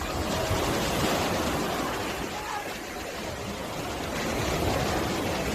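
Ocean waves washing onto a beach, a steady rush that swells twice, about a second in and again near the end.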